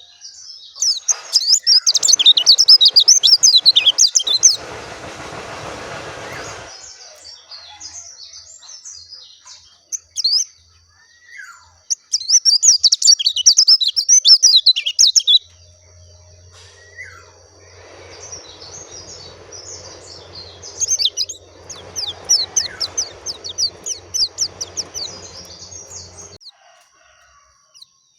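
White-eye (pleci dakun) singing: three bursts of rapid, high twittering song, with short single calls between them.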